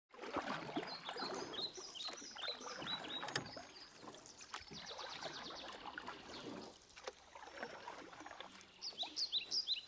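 Kayak paddle strokes and water splashing, with short, falling bird chirps, several a second in the first few seconds.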